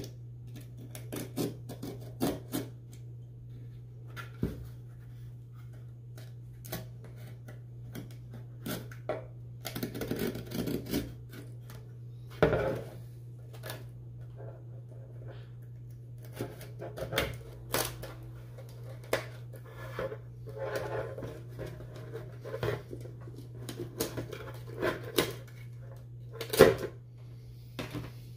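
Razor knife scraping and cutting at a subwoofer cone's glue joint, with scratchy scrapes and sharp clicks and knocks as the voice coil and spider assembly is worked loose and handled, and two louder knocks about halfway through and near the end. A steady low hum runs underneath.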